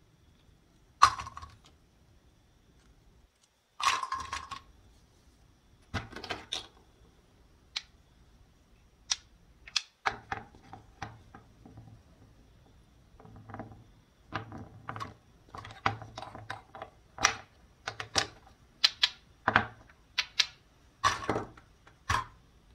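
Plastic toy fruit and vegetable pieces clicking and knocking against each other and on a wooden cutting board, with a few short rasps of velcro as the halves are pulled apart. The clicks come thicker and faster in the second half.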